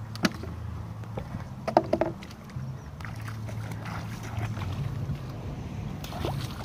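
Shallow muddy water sloshing and splashing as a fishing net is handled by hand and feet wade through the mud, over a steady low rumble. A few short sharp splashes stand out, the loudest about two seconds in.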